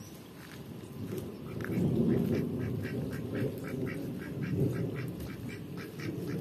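Thunder rumbling after a rainstorm, with a duck quacking in a steady run of short calls, about four a second, from about two seconds in.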